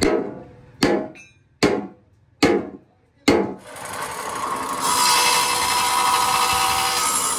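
Five hammer blows on a steel plate, a little under a second apart, each ringing briefly. Then an electric abrasive chop saw cuts into a steel bar with a steady grinding screech that grows louder about five seconds in.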